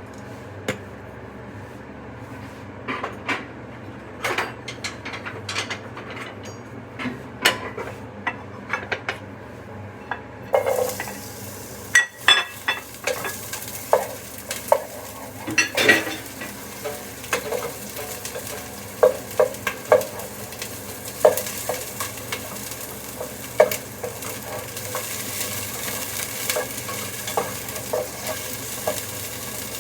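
A utensil tapping and scraping against a pan while stirring; about ten seconds in, food starts sizzling in the hot pan, and the sizzle continues under the repeated taps of stirring.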